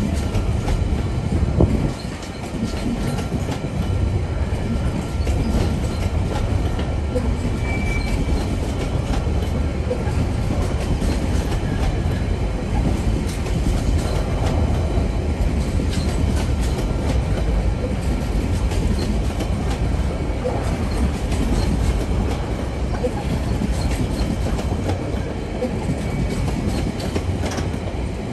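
Freight train's container flat wagons rolling past: a steady rumble of steel wheels on rail, with the clickety-clack of wheels crossing rail joints.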